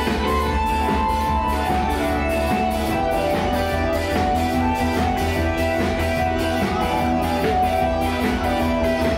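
Upbeat band music: an electric guitar line over a heavy bass and a steady beat.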